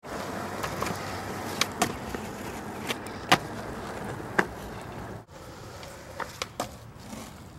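Skateboard wheels rolling over rough concrete, with sharp clacks of the board popping and landing during flatground tricks, the loudest about three seconds in. The rolling stops briefly a little past five seconds, and a few lighter clacks follow.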